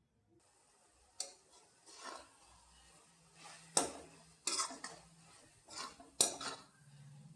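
Cooking utensil clinking and scraping against a pan, about six separate strokes, as noodles are stirred.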